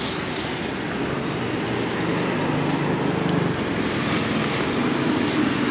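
Honda CB400X's parallel-twin engine running while the bike is ridden, under steady wind and road noise, the engine note a little stronger about halfway through.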